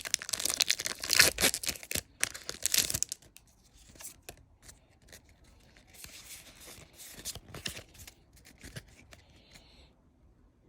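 A foil Pokémon booster pack wrapper is torn open with loud crinkling rips through the first three seconds, followed by softer rustling of the wrapper and cards being handled.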